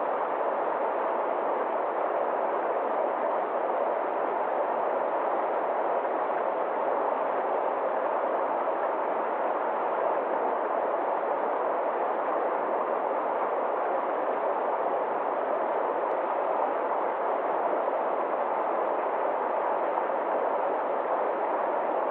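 Forest stream rushing over a small rocky cascade: a steady, even rush of water.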